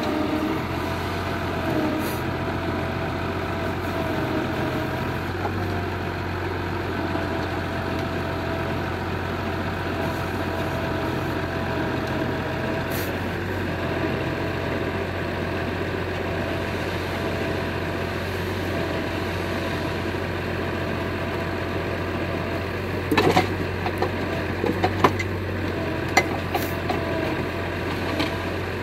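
John Deere 6600 forestry tractor running steadily while its hydraulic log crane works. Near the end there is a series of sharp knocks as logs are dropped by the grapple onto the load.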